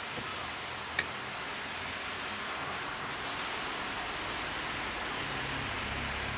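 Steady hiss of rain during a thunderstorm, with one sharp tick about a second in and a low rumble of distant thunder building near the end.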